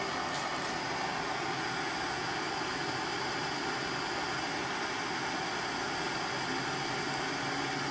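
MAPP gas torch burning with a steady hiss while the cylinder block is heated until the soft solder runs.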